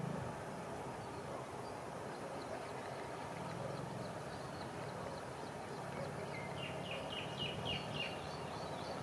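Bird chirping: a few faint chirps, then a quick run of about eight chirps, roughly five a second, in the last third, over a low steady hum.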